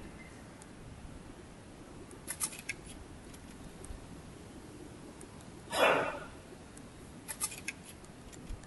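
Light clicks of a Panasonic Lumix ZS20's rear buttons as they are pressed: a few quick ones about two seconds in and a few more about seven seconds in. In between, about six seconds in, there is one brief, louder rush of noise.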